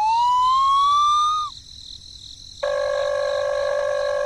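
A siren-like tone rising smoothly in pitch, which cuts off about a second and a half in. About a second later a steady, lower buzzing tone starts and holds to the end.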